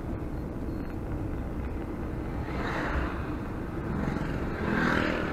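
A car on the road: steady engine and tyre rumble that swells briefly about three seconds in and again near the end.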